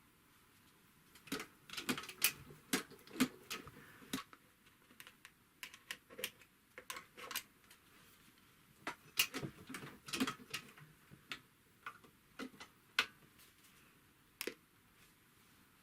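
Irregular sharp clicks and light taps, in scattered clusters, from hands and tools working on the mechanism of an industrial sewing machine while it is being oiled.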